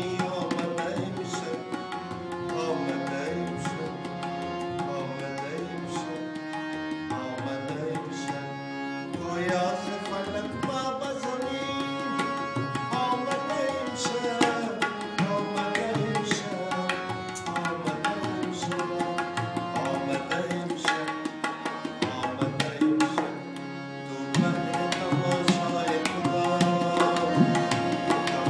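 Paul & Co. (Calcutta) harmonium playing a melody in sustained reed notes, accompanied by a tabla pair keeping a steady rhythm of quick strokes.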